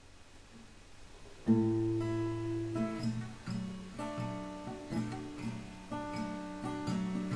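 Music: an acoustic guitar intro. After faint hiss, the guitar comes in sharply about a second and a half in, with chords ringing out about once a second.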